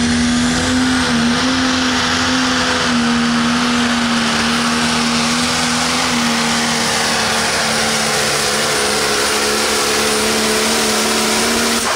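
Pro stock pulling tractor's diesel engine at full throttle under load, a loud steady note held at high revs. It falls away right at the end as the engine backs off.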